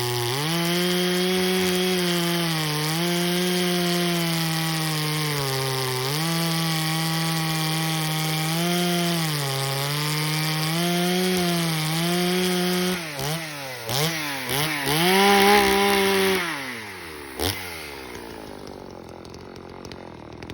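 Ported Poulan 3450 two-stroke chainsaw running at high revs through wood, its pitch sagging under load and recovering several times. Near the end the throttle is blipped up and down a few times, then the engine drops off with a falling pitch.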